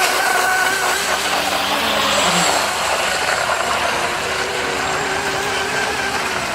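Radio-controlled boat's motor running with a steady tone whose pitch drifts slightly.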